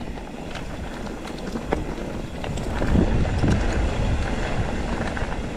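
Mountain bike rolling along a trail: wind rushing over the microphone, tyre rumble, and scattered small clicks and rattles from the bike, getting louder about three seconds in.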